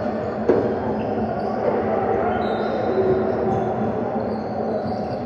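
Basketballs bouncing on a hardwood gym floor amid the steady echoing noise of a large gymnasium, with one sharp thud about half a second in.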